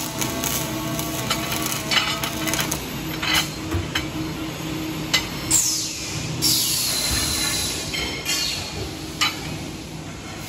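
Automatic wire-feed welding machine joining a steel screw jack to its base plate, a steady arc noise for the first couple of seconds, then a string of sharp metallic clanks and knocks as the steel part is struck and handled, a few of them ringing briefly.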